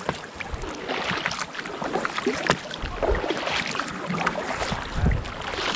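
Paddles dipping and splashing beside an inflatable kayak, with water lapping at the hull: a steady wash broken by small irregular splashes.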